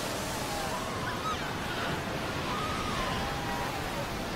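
Surf breaking and washing over a packed crowd of Cape fur seal pups, with a steady rush of foaming water and faint, wavering bleats from the pups.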